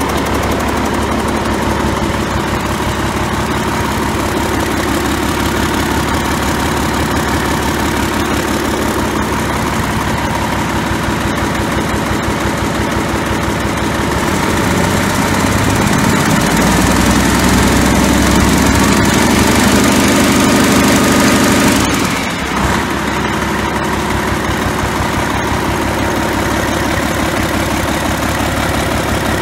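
Cummins ISM EGR inline-six diesel engine running on a test stand, idling steadily. About halfway through it speeds up and runs louder for several seconds, then drops back to idle.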